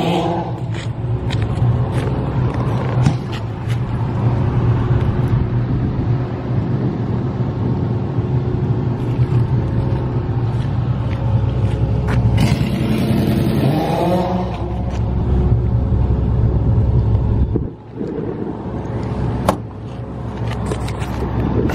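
SDMO RES13EC gas generator's Kohler CH740 V-twin engine running steadily inside its soundproofed enclosure, a low even drone. About 18 seconds in the low drone drops away suddenly and the sound grows quieter.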